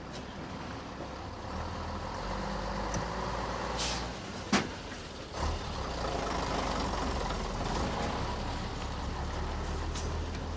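Bus terminal ambience: heavy vehicle engines idling with a steady low rumble. A short hiss of air comes about four seconds in, then a sharp knock, the loudest sound, and a smaller thump about a second later.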